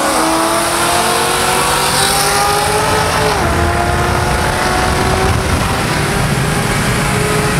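Performance car engine at full throttle, its pitch climbing steadily, with one quick upshift about halfway through where the pitch drops and then climbs again; road and wind noise underneath.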